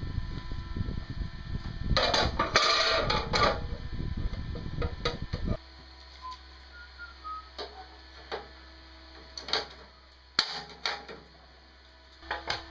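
Workshop handling noise: rough knocking and clattering of tools or parts, with a harsher scraping stretch about two seconds in. It stops abruptly about halfway through, leaving a low hum and scattered small taps and clicks.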